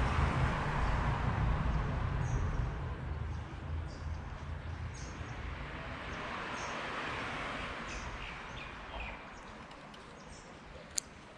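Outdoor creekside ambience: scattered short, high bird chirps over a low rumble that fades away over the first half, with one sharp click near the end.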